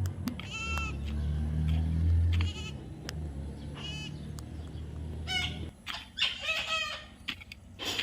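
Baby parrot giving short, pitched, bleating calls, one every second or two and then several in quick succession in the second half. A low steady hum runs underneath and stops a little past halfway.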